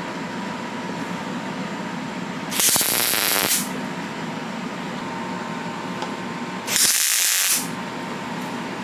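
Wire-feed welder laying two short welds about four seconds apart, each a burst of about a second, joining the steel nail pins to the steel base disc. A steady hum runs underneath.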